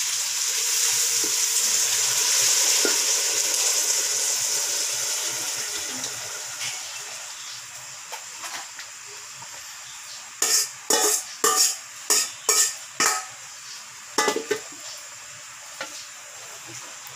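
Food sizzling in a hot aluminium pot on a gas stove, the hiss fading over the first several seconds. From about ten seconds in comes a quick run of sharp metal knocks and scrapes as a ladle works boiled mung beans in the pot.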